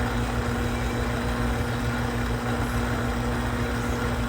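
Steady mechanical hum of a running motor or engine, one constant tone over a low rumble, unchanging throughout.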